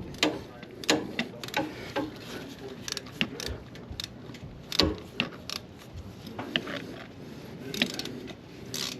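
Irregular metallic clicks and taps from a socket ratchet and tools, about one or two a second, as a drain plug is threaded back in and snugged down.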